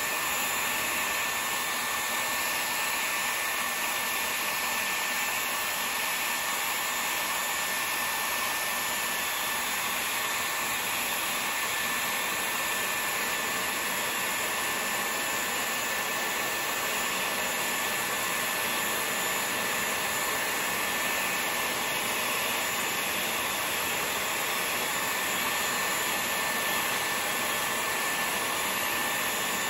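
Dyson Airwrap hair styler with a curling barrel attached, running steadily at a high airflow setting: a rushing blast of air with a thin, steady high whine from its motor.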